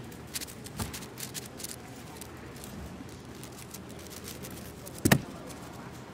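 Plastic clicks and clacks of an AoShi WRM 6x6 speedcube being turned fast, thickest in the first two seconds. About five seconds in, a loud slap as the hands come down on the pads of a Speed Stacks timer to stop it.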